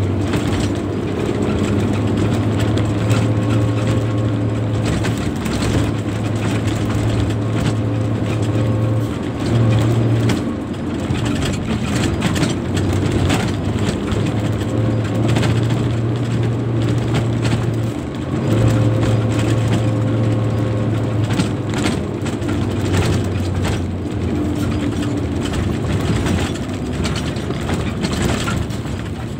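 Hino FM 260 JD dump truck's diesel engine running under way, heard from inside the cab, with constant rattling and knocking of the cab over the rough dirt haul road. The low engine drone breaks off briefly a few times.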